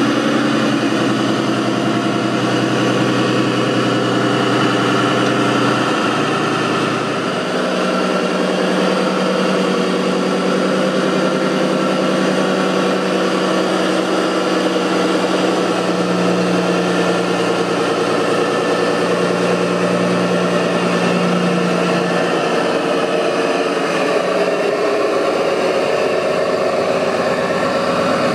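Steady engine-like running of radio-controlled construction vehicles, with the pitch stepping up about seven seconds in and then holding.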